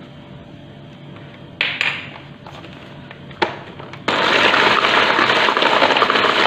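An electric hand mixer switches on about four seconds in and runs steadily, its whisk beaters whipping a thin egg, sugar, oil and milk batter. A few light knocks come before it starts.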